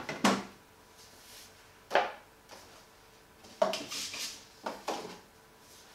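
Boxes and packaging being set down on a shelf and pushed into place: about five sharp knocks with brief scraping, the first just after the start and the last at about five seconds.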